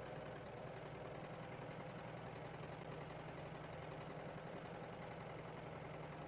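Husqvarna Huskylock 936 serger running with a steady hum as it stitches a pin tuck along folded fabric.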